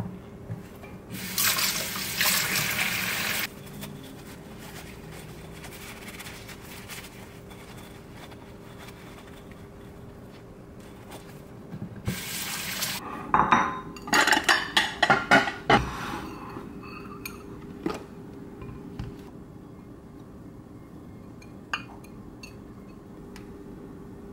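Kitchen tap running into a stainless steel sink in two bursts, one of about two seconds and a shorter one later, then a run of splashes and knocks as a ceramic egg separator is rinsed and handled under it.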